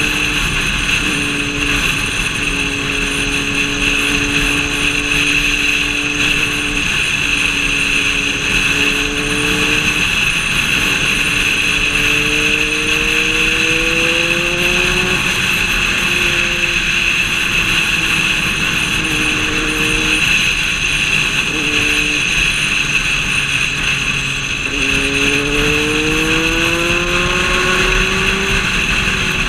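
Motorcycle engine running on the move, its note holding, dropping, then climbing steadily twice as it accelerates, over a steady high hiss.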